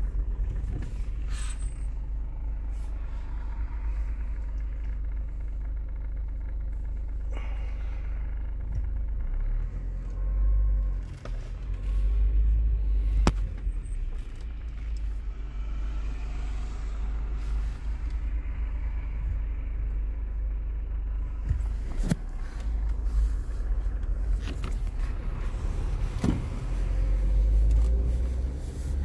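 Low, steady road and engine rumble inside a moving car's cabin, swelling twice as the car pulls away. Three sharp knocks fall in the second half.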